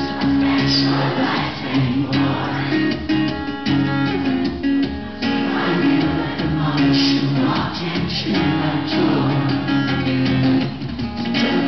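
Two acoustic guitars strummed together in a live song performance, with steady chords and regular strokes.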